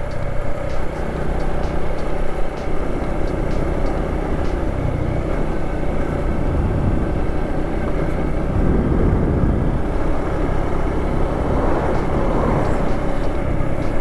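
Motorcycle engine running while riding along, with wind rushing over the microphone; the engine note rises and falls in the second half.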